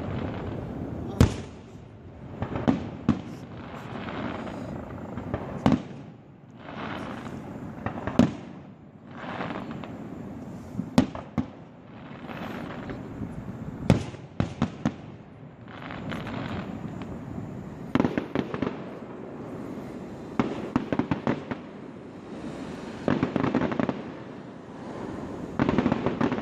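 Fireworks display: a steady run of sharp shell bursts, some in quick clusters, over rolling waves of crackling and hissing.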